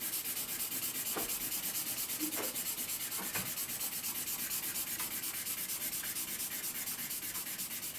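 Soft charcoal pencil scribbling back and forth on paper, a steady scratchy rubbing at about six or seven strokes a second as a dark background is filled in.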